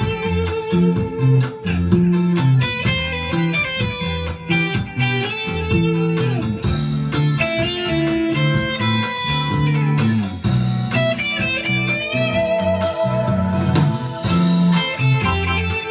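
Instrumental rock music: an electric guitar plays a lead melody, holding some notes with vibrato, over a bass line and a drum backing.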